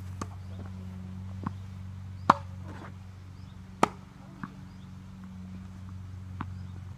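Tennis ball being hit with rackets and bouncing on the court: a string of separate sharp knocks, the loudest a little over two seconds in, over a steady low hum.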